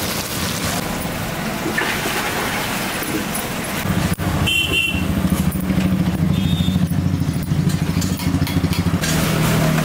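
A motorcycle engine running with a fast, pulsing low note, louder from about four seconds in. Two short high tones sound around the middle.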